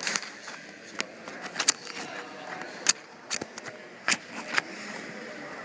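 Footsteps on gym bleachers: a series of irregular sharp knocks, over a background of crowd chatter.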